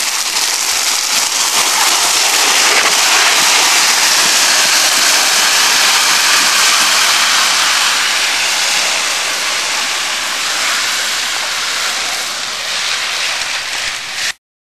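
Sled sliding fast down a snowy slope: a loud, continuous rush and scrape of snow under the sled, mixed with air rushing past. It builds over the first couple of seconds and cuts off abruptly near the end.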